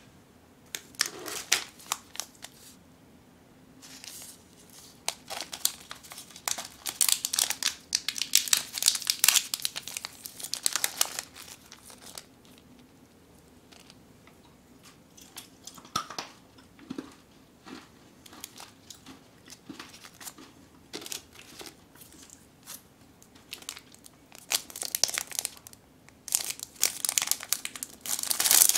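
Plastic snack wrappers crinkling as small packets are picked up and handled. It comes in irregular bursts, quieter for several seconds in the middle and loudest again near the end.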